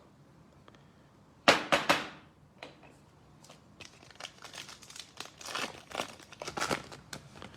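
A foil trading-card pack being torn open, with a short burst of ripping about one and a half seconds in. After it come a run of light crinkles and clicks as the wrapper is handled and the cards are slid out.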